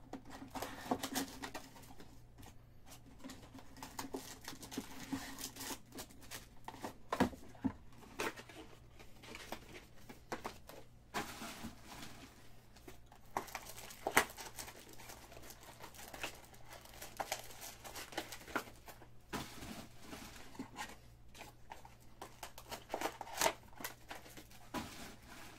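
Foil trading-card pack wrappers crinkling and rustling as the packs are handled, with irregular sharp crackles and light taps.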